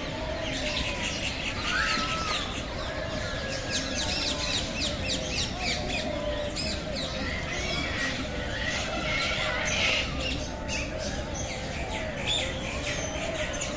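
Many birds chirping and squawking at once, a dense chorus of short overlapping calls with a few longer gliding ones.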